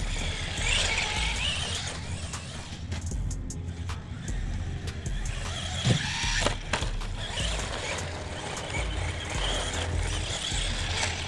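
Su Chi Yu 16102 Conquer 1:16 scale RC monster truck's electric motor whining as it drives over wet, snowy grass, with a sharp knock about six seconds in.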